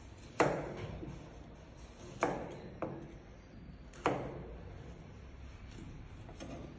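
Chef's knife chopping through a carrot onto a plastic cutting board: four separate sharp knocks at uneven intervals in the first four seconds, then a couple of fainter taps near the end.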